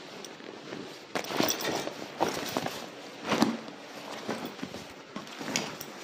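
Scattered knocks, clicks and rustles of gear being handled and put on, with a few louder knocks about a second in, near the middle and near the end.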